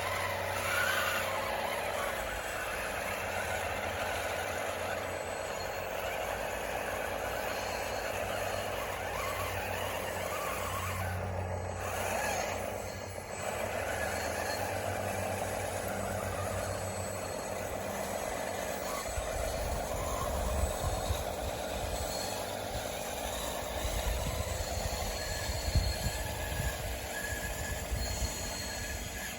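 DXR2 radio-controlled bulldozer working, its drive motor and gearbox whining steadily with a slightly wavering pitch. Irregular low rumbling comes in during the last third.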